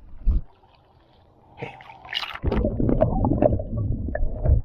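Pool water sloshing and gurgling close to the microphone, loud and dense from about halfway in, with a single thump near the start.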